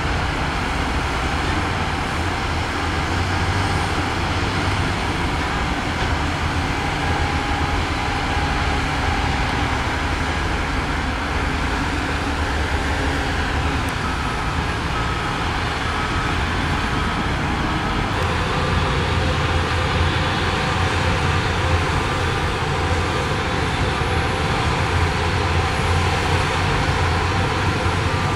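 Diesel engines of heavy earthmoving machinery, a bulldozer and a dump truck at work, running steadily under load, with a faint repeated beeping about halfway through.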